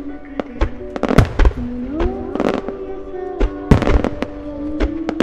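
Aerial fireworks shells and ground-launched effects bursting in a rapid, irregular series of booms and cracks, with music playing steadily underneath.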